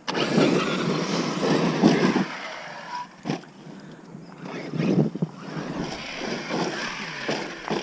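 Large electric RC trucks driving hard on dirt: tyres and motors in uneven surges of noise, with a few sharp knocks about three and five seconds in.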